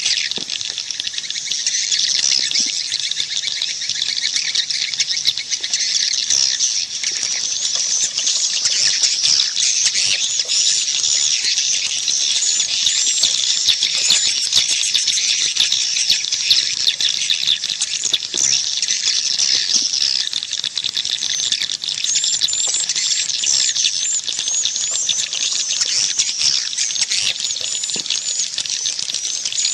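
A dense flock of edible-nest swiftlets twittering without pause, a continuous stream of rapid, high-pitched chirps. This is a swiftlet calling sound, played at swiftlet houses to lure the birds in to roost and nest.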